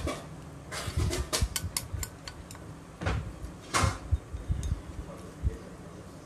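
Objects being handled: a quick run of light clicks and clatters about a second in, then two short, louder noisy bursts around three and four seconds.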